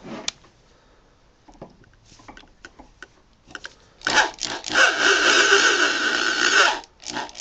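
A few faint handling clicks, then a power drill runs steadily for nearly three seconds, backing the self-drilling Teks screw out of the wood. The drill starts up again near the end.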